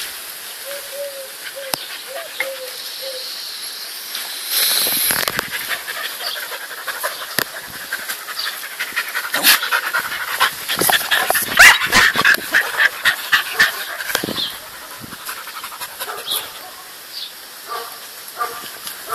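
Dogs panting at close range, with a fast, loud stretch of quick breaths around the middle.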